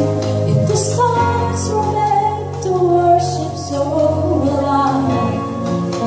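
Live worship band playing a slow song over held keyboard chords, with a woman's voice singing the melody from about a second in.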